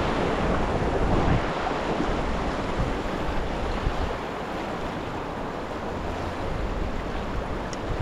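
River water rushing, with wind rumbling on the microphone, the rumble easing in the middle.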